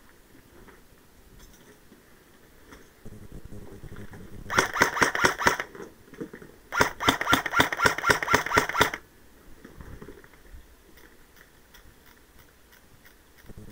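Airsoft rifle firing two rapid bursts of sharp shots, the first about a second long and the second about two seconds, with a short pause between them.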